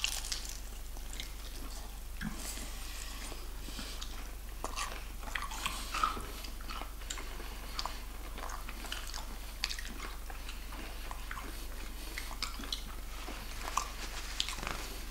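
Close-up mouth sounds of a person biting and chewing KFC fried chicken off the bone, with many short, irregular clicks and small crackles.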